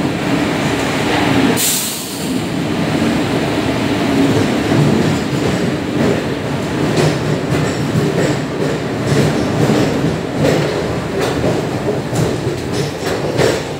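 An arriving passenger express rolls past along the platform, first its electric locomotive and then the coaches, with a steady loud rumble of wheels on rails. A brief sharp hiss comes about two seconds in, and in the second half the wheels clack in quick irregular clicks over the rail joints.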